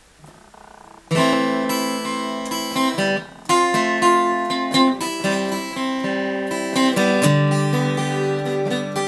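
Taylor 224 K DLX acoustic guitar strummed, starting about a second in: full chords ringing, with a brief break just after the three-second mark and a change to a lower chord around seven seconds.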